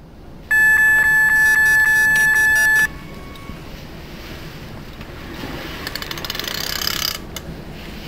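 Electronic carp bite alarm sounding a continuous high beeping tone, pulsing about four times a second, for about two seconds: a fish is taking line. Rustling of clothing and handling follow as the rod is grabbed, with a couple of sharp clicks near the end.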